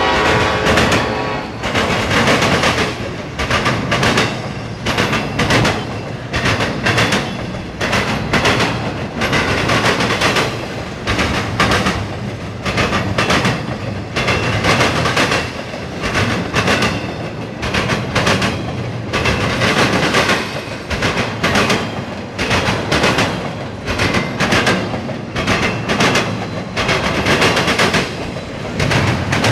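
An intermodal freight train's cars rolling past close by: steel wheels clacking over rail joints in a quick, uneven rhythm over a continuous rumble and rattle. A steady pitched tone dies away in the first second or so.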